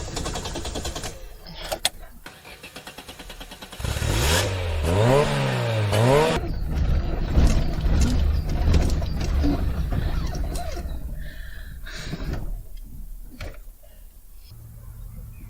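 An old Renault Clio's engine is cranked on the starter with a rhythmic churning. About four seconds in it catches and is revved up and down for a couple of seconds with the gas pedal pumped, then runs unevenly and fades, with a few sharp clicks. Near the end a steady low hum sets in.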